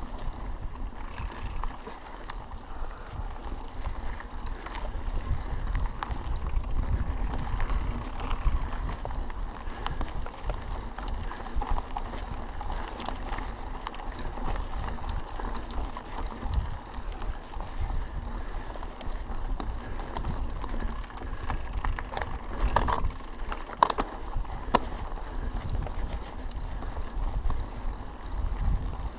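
Mountain bike rolling over a dirt and gravel trail: steady tyre noise with continual rattling and clicking from the bike over bumps, and a few sharper knocks about three quarters of the way through, over a low rumble of wind on the microphone.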